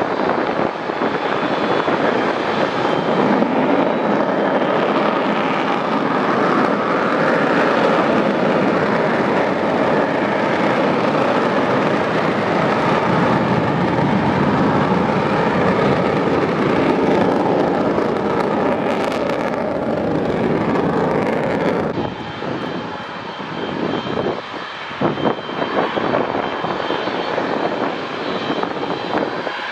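Twin jet engines of a MiG-29 fighter running steadily at high power while the jet stands on the runway, an engine run-up before the takeoff roll. About 22 seconds in this gives way to quieter, gusty wind noise on the microphone.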